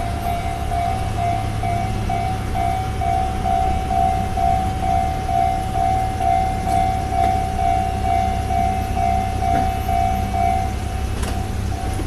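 Japanese railway level-crossing warning bell ringing its rapid, evenly spaced single-pitched clang while the barriers are down, over a steady low rumble. The bell turns noticeably quieter near the end.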